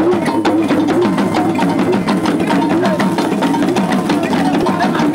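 Damba dance drumming: hourglass talking drums bend their pitch up and down over a dense, fast run of drum strokes.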